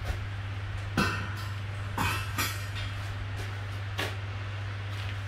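An 80 kg anvil being set down on a steel anvil stand: a few separate metal knocks and clinks as it settles onto the top plate among the bolts, the loudest about a second in and the last about four seconds in. A steady low hum runs underneath.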